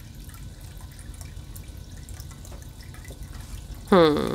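Low steady background noise, then near the end a person's voice gives a short hum that falls in pitch.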